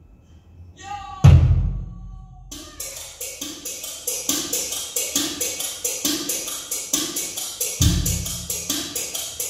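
Music played back through ASI speakers: a quiet build-up broken by one heavy drum hit about a second in, then from about two and a half seconds a steady fast beat of crisp ticking percussion over regular deep thumps.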